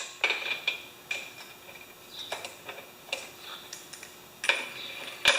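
Scattered light clicks and ticks at irregular spacing as a spark plug is fitted back into a small mower engine by hand and tool, with a short scrape or rustle near the end.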